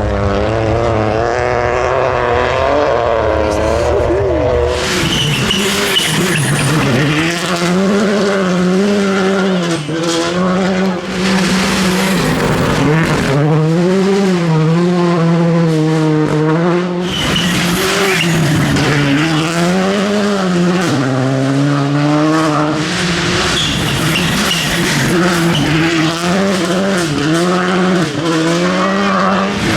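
Rally cars at full attack on a gravel stage: engines revving hard, pitch climbing and dropping sharply through gear changes over and over, with bursts of sliding tyre and gravel noise.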